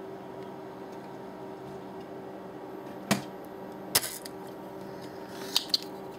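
Spring-loaded desoldering pump (solder sucker) firing at a circuit board's solder joints: two sharp snaps about a second apart, about three seconds in, then a few lighter ticks near the end. Under it runs a steady faint electrical hum.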